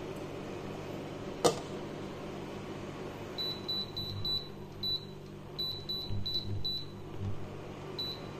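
A glass pot lid is set on a stainless steel pot with one sharp clink. From about three seconds in, a touch-control cooktop gives about a dozen short, high beeps as its buttons are pressed to turn the heat down under the boiling rice. A steady low hum runs underneath.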